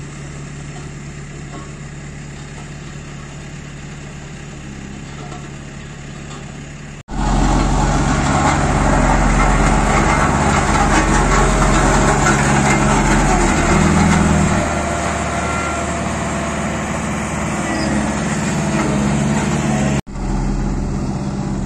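Heavy road-building machinery with diesel engines running steadily. About seven seconds in, after a sudden break, a tandem double-drum road roller's engine comes in close and loud with a deep rumble, easing off a little around halfway; near the end, after another sudden break, a steady engine sound continues at a lower level.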